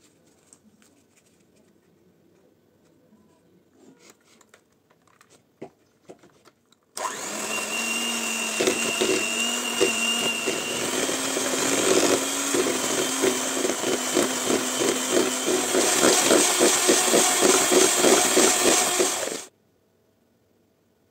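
Electric hand mixer switched on about seven seconds in, its whining motor and spinning beaters whipping butter in a plastic bowl with a fast, steady ticking, then switched off suddenly near the end.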